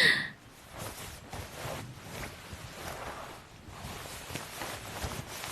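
Clothing rustling and shuffling as someone undresses and changes clothes, with a few soft taps.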